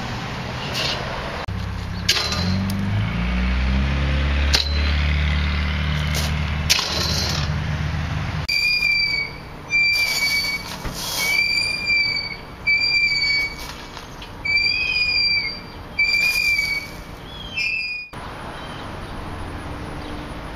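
A metal playground swing squeaking on each pass, a short high squeak about once a second for nine seconds or so. Before that come a low rumble and a few sharp clicks.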